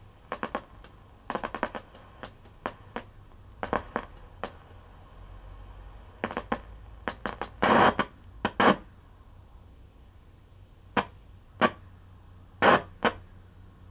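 Rotary channel-selector knob on a 1960s Sylvania tube color TV clicking through its detents, in irregular runs with a quick burst of clicks about a second and a half in and louder clunks near the middle and near the end. A steady low hum runs underneath.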